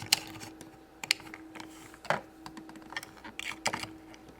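Scattered light plastic clicks and taps as clip-on Magiclip dresses are pulled off and clipped onto small princess dolls.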